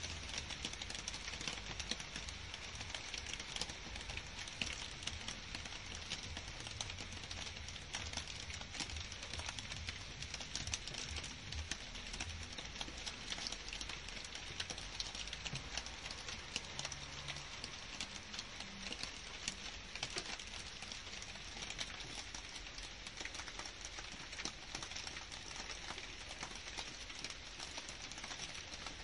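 Steady rainfall pattering on garden foliage and grass: a dense, even hiss of countless small drop ticks, with a faint low rumble underneath in the first half.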